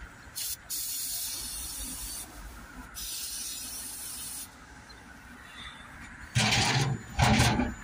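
Aerosol brake cleaner sprayed in three hissing bursts, the longest about a second and a half, into a soot-clogged diesel EGR valve. Near the end come two louder, fuller bursts.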